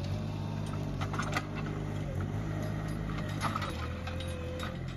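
Small engine of a compact loader running steadily, with scattered clanks and knocks through it.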